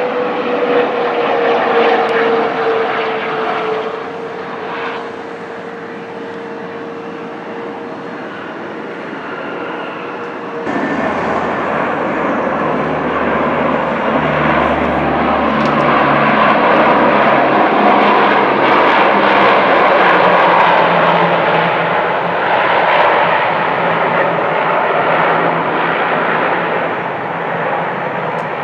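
Bombardier CRJ-200 regional jet on its landing roll, its engine whine falling slowly in pitch. After an abrupt cut about ten seconds in, the four turboprop engines of a C-130 Hercules drone with a low propeller hum as it lands and rolls down the runway, growing louder in the middle.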